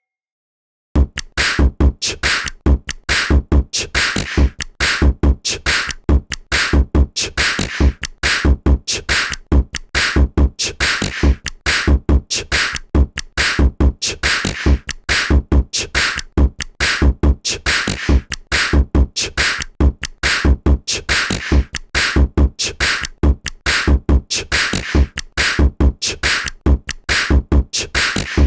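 A CyanogenMod ringtone: an electronic track with a fast drum-machine beat of deep bass kicks and sharp, crisp percussive hits, starting about a second in after a brief silence.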